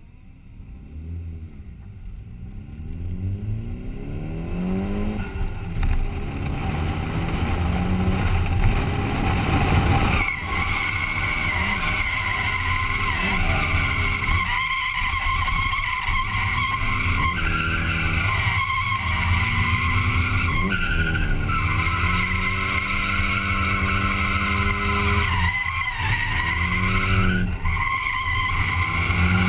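Nissan 240SX's turbocharged SR20DET four-cylinder engine revving up through the gears, its note climbing several times over the first ten seconds. From about ten seconds in the tyres squeal continuously as the car drifts, while the engine note falls and rises with the throttle.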